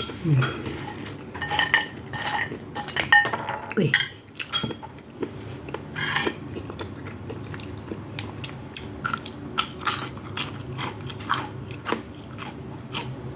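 Eating sounds: a spoon clinking and scraping on a plate in scattered short clicks, with biting and chewing in between.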